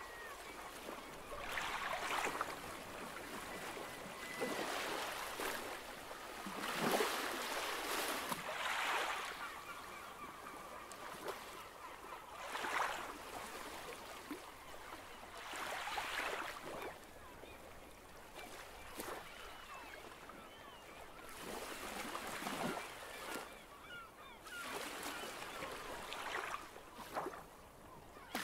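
Sea waves washing against a rocky breakwater, surging and falling away irregularly every couple of seconds. A faint, thin, steady tone comes and goes.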